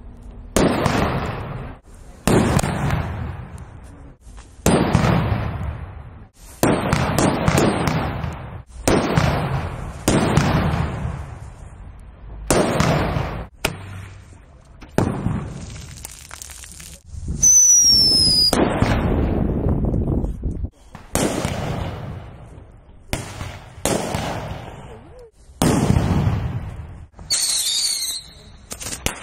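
A string of loud firecracker bangs set off one after another, roughly one every two seconds, each bang trailing off in a long echo.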